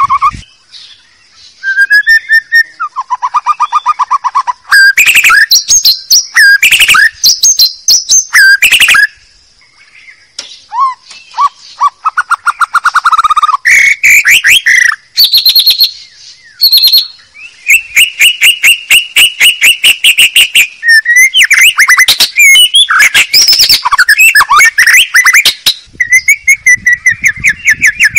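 White-rumped shama (murai batu) singing loudly in a lure recording: varied whistled phrases and rapid trills separated by short pauses, including one long, fast trill about two-thirds of the way through.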